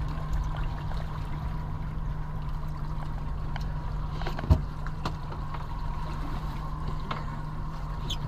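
Steady low rumble of a small boat on open water, with a faint steady whine above it and one sharp knock about four and a half seconds in.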